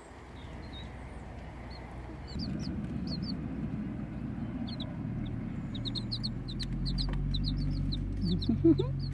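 Chicks peeping in short high chirps, a few at first and then quick and busy from about halfway, over a low rumble and hum around the nest.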